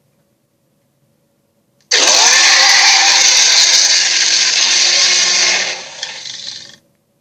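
A loud, hissing, rushing sound effect from an animated series that starts suddenly about two seconds in, with a brief falling tone at its onset, holds for about four seconds and then fades out.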